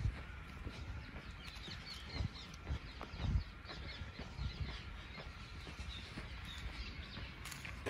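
Footsteps of someone walking, a series of dull low thumps, with small birds chirping.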